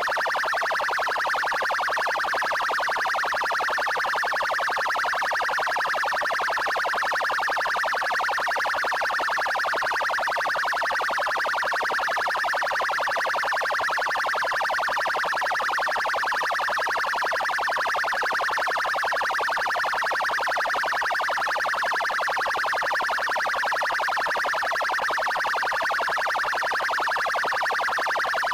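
Paraná Military Police (PMPR) car siren sounding its 'trail' tone: a loud, steady, fast-pulsing siren note that does not rise or fall.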